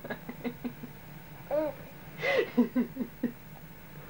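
A baby cooing and giggling: short chuckling sounds, with a longer rising-and-falling coo about one and a half seconds in and another a little over two seconds in.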